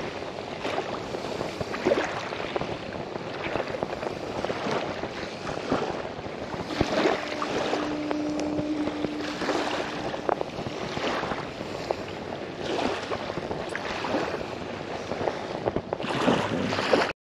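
Rushing noise of wind and waves, swelling and easing every second or two.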